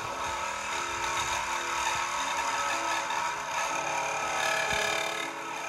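A handheld power tool running steadily as it cuts into an old cast iron drain pipe, a constant grinding whir.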